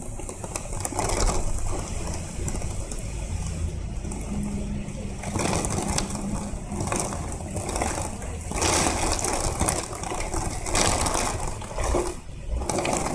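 Storm wind gusting hard, with rain driven against the window glass: the rushing surges and eases every couple of seconds over a deep steady rumble.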